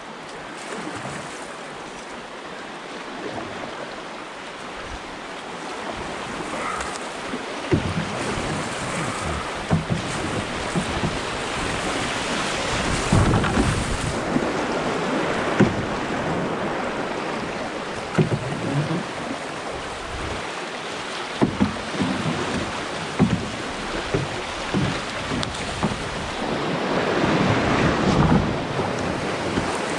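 Rushing whitewater of a class II brook rapid heard from inside an open canoe, growing louder from about six seconds in as the boat runs the rapid. Scattered sharp thumps and splashes sound through it.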